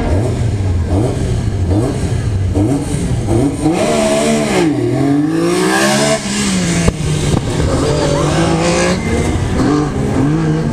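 Rally car engine revving, then accelerating hard about four seconds in, its pitch climbing and dropping through gear changes. After that, an engine runs steadily and starts revving up again near the end.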